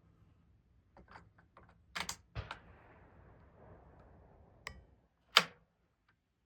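Metallic clicks and knocks from handling a Ruger 10/22 rifle and its magazine, ending with one sharp, much louder snap about five seconds in.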